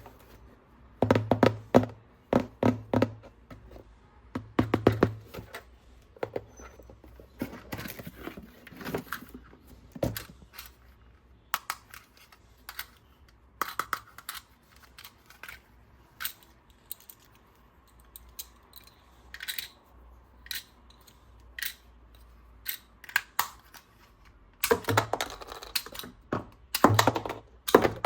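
Plastic toys and packaging being handled: irregular clicks, taps and knocks, some in quick clusters.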